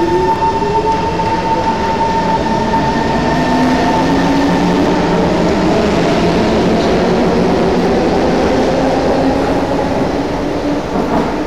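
Metro train pulling out of the station: the electric traction motors whine in several rising glides as it accelerates, over a steady rumble of wheels on rail, easing off near the end as the last car clears the platform.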